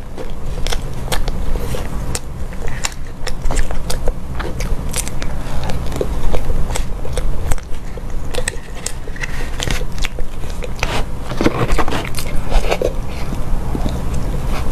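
Close-miked eating of a soft chocolate box cake: mouth and chewing sounds, with a plastic fork scraping and tapping in a plastic box, making many sharp little clicks.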